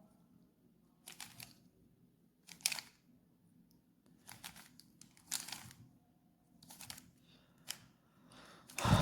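3x3 Rubik's Cube turned by hand: short plastic rattling bursts of layer turns, about one every second, with a louder burst near the end.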